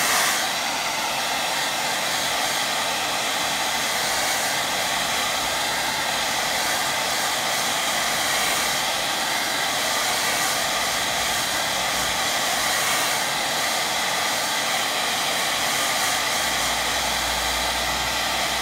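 BaByliss hair dryer running steadily, blowing hot air over wet watercolour paper to dry the paint.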